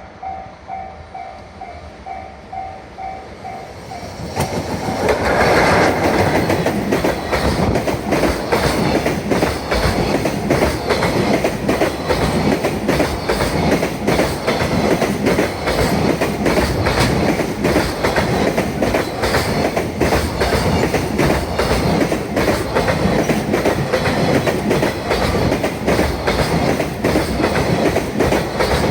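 Japanese level-crossing warning bell ringing in a steady pulse. About four seconds in, a long freight train rushes past at speed, its wheels clattering rhythmically over the rail joints and drowning out the bell.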